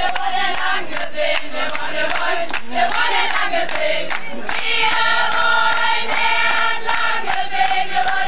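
A crowd singing together, many voices holding notes in unison, with scattered hand claps.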